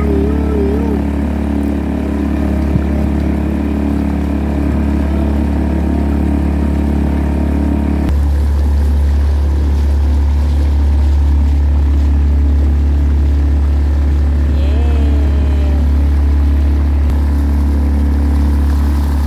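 A small motorboat's engine running steadily under way, a loud low drone. About eight seconds in, its note shifts and grows louder.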